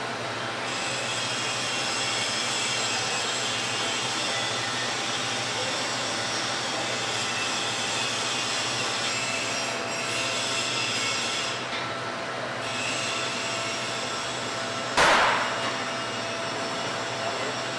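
Oxy-fuel gas welding torch flame hissing steadily while welding sheet steel, with a few faint steady tones underneath. A short, louder burst comes about fifteen seconds in.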